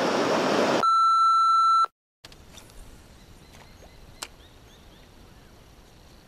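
Rushing river rapids, cut off by a steady electronic beep about a second long. After a brief silence, quiet riverside ambience follows, with faint ticks and small chirps.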